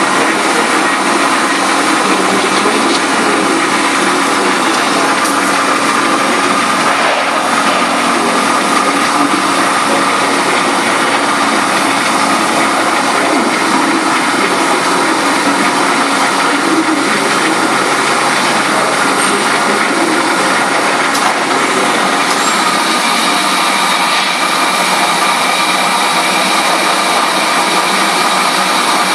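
Steady, loud drone of running paper-converting machinery on a factory floor, with a few faint steady tones through it and no distinct cutting strokes.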